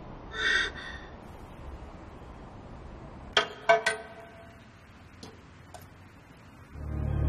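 Three sharp metallic clicks in quick succession, like a metal locker's latch and door, followed by two faint ticks. Background music comes in near the end.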